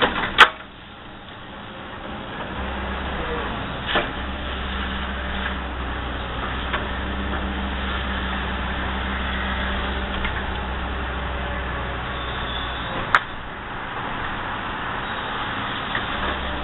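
Excavator's diesel engine running under load as the bucket is worked, its low hum easing off near the start and again about thirteen seconds in. Sharp clicks about half a second in, around four seconds and near the end, the first the loudest.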